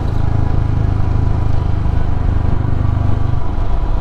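Royal Enfield Himalayan's single-cylinder engine running steadily as the motorcycle is ridden, the low drone easing off a little near the end.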